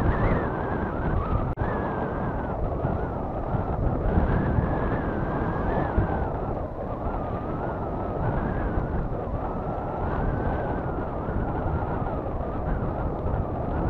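Wind buffeting a camera microphone on a flying sport kite: a steady, dense rumble, with a brief dropout about a second and a half in.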